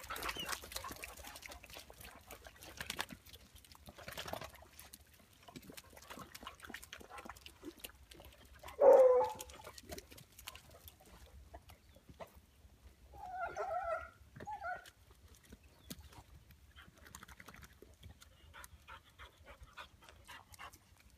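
Hounds barking: one loud, short bark about nine seconds in, then a longer drawn-out call followed by a short one around thirteen to fifteen seconds in, over faint scattered clicks and rustling.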